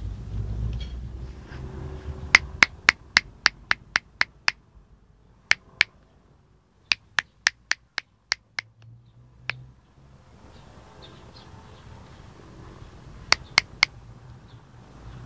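Fingers snapping in runs of sharp clicks, about four a second: a run of about nine, a couple of single snaps, a run of about seven, and three more near the end. A low rumble in the first two seconds.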